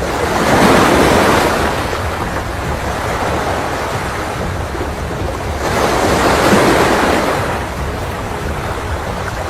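Swollen floodwater rushing past, with wind buffeting the microphone. The rush swells louder twice.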